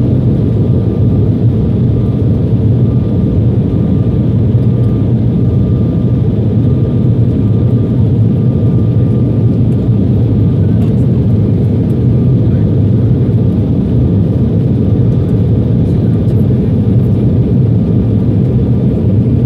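Steady loud cabin noise of a jet airliner at takeoff and climb: engines at high thrust and rushing airflow, heard through the fuselage, with a faint steady whine above it.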